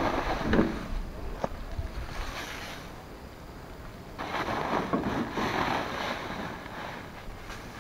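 The contents of a plastic sack being poured into a steel wheelbarrow: a rushing hiss that swells about four seconds in and then tails off, with a couple of sharp knocks from the sack and barrow before it.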